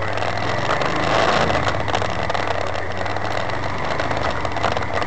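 Side-by-side off-road vehicle's engine running steadily at low speed while crawling over rock, heard from inside the open cab with faint rattles.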